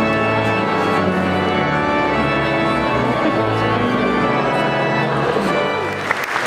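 Organ playing slow, sustained chords. Near the end the organ gives way to the start of clapping.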